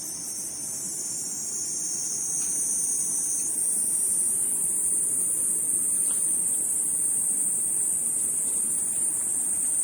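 A chorus of insects shrilling: a steady, high-pitched buzz that grows louder a few seconds in.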